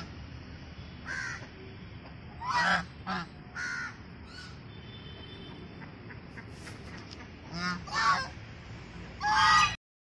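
White domestic geese honking: a string of short honks in loose bursts, the loudest about two and a half seconds in and near the end, where the sound cuts off abruptly.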